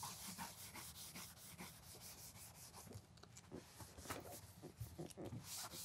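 Faint scrubbing of a primer pad against EPDM rubber roofing membrane, in quick back-and-forth strokes, as primer is worked into the membrane before a patch goes on.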